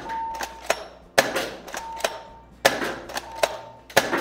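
Double Eagle M56A3 spring-powered airsoft shotgun fired three times, about a second and a half apart, each shot a sharp snap. Between shots come a few lighter clicks and a short electronic beep from the reactive target.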